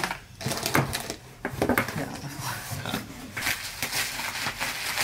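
Bubble wrap and plastic packaging crinkling and rustling as a flower bouquet is handled and pulled out of a cardboard shipping box, with scattered crackles and clicks that grow denser in the second half.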